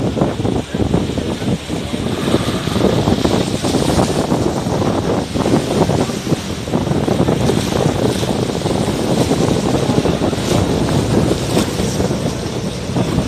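Steady low rumble of a motorboat under way with the wash of water along the hull, mixed with wind buffeting the microphone.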